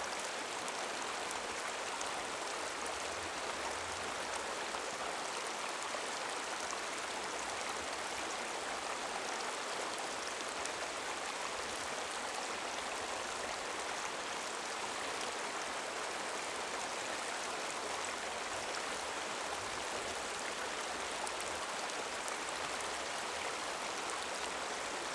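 Hot spring water pouring from pipes into a soaking tub: a steady rush and splash of running water.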